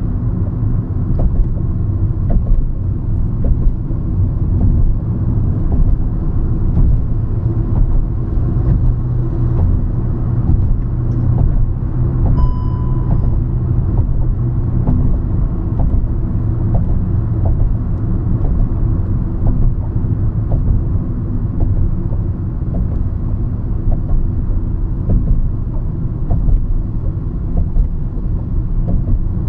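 Hyundai i20 car driving along a road: steady low rumble of engine and tyres. A short, high beep sounds once about halfway through.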